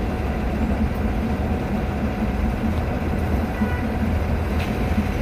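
Steady low rumble of running vehicle engines and traffic, heard while riding in city traffic close behind a transit bus.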